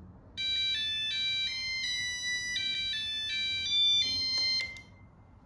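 A DIY digital LED clock kit's alarm playing a high, beeping electronic tune, about three notes a second, until a press on its button cuts it off suddenly with a click about four and a half seconds in.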